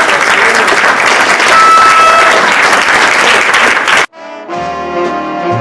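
Audience applauding. About four seconds in, the applause cuts off suddenly and brass-led jazz music starts.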